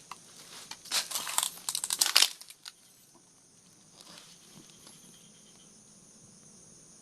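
Dry leaves and brush crackling and rustling underfoot for about two seconds, a cluster of short crunches, then it goes quiet under steady insect chirping.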